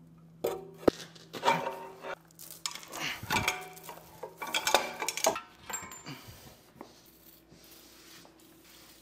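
Steel tools and parts clanking and clinking as a wrench and breaker bar work bolts on an old cast-iron power hammer: a run of irregular metallic knocks, some ringing, over the first seven seconds or so, then only a faint hum.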